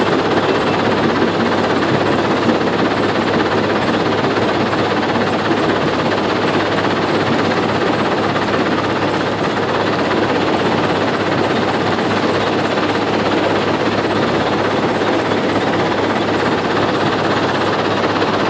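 Heavy diesel engine of an excavator running steadily under load, a loud, even rumble with a constant low hum.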